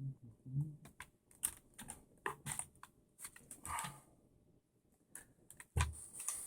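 Scattered light clicks and taps of a screwdriver and small parts on an RC buggy's plastic chassis as screws are worked loose during the motor removal.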